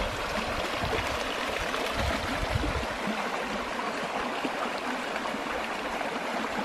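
Shallow, stony forest stream running over rocks, a steady rushing of water.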